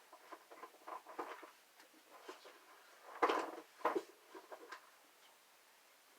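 Handling and rummaging noises: irregular rustling, scraping and light knocks of objects being moved about, with a louder cluster of rustles and knocks about three to four seconds in.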